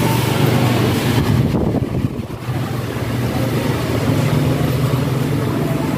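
Traffic noise: a steady low hum of vehicle engines with a haze of road noise over it, dipping briefly about two seconds in.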